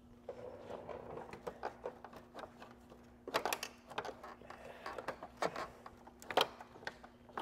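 Hands pushing and working the plastic radiator grille of a Mercedes-Benz R-Class to free its clips: a run of irregular clicks, knocks and plastic rattles, loudest about three and a half seconds in and again about six and a half seconds in. The grille does not come free.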